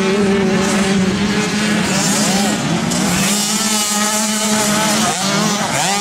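Several 65cc two-stroke motocross bikes racing, engines overlapping and revving up and down as the riders work the throttle through the track.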